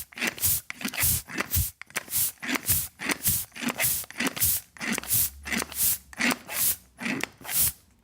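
Air pump being worked in quick, even strokes, each stroke a short hiss of air, about two to three a second.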